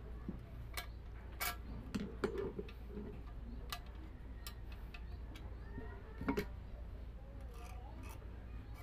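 Light, irregular metallic clicks and ticks as long-nose pliers bend and tap thin metal wire against a steel hammer head, with a steady low hum underneath.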